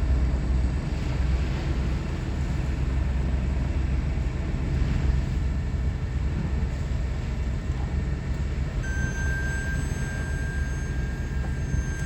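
A fishing boat's engine running with a steady low drone. About nine seconds in, a thin, steady high whine joins it.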